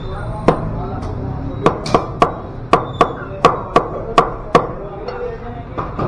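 Meat cleaver chopping chicken pieces on a wooden chopping block: about ten sharp strikes, coming in quick succession in the middle stretch.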